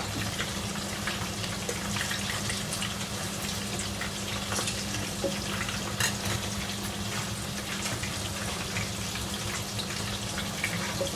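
Steady low sizzle of a hot tawa on the stove, over a constant low hum, with a few light utensil clicks.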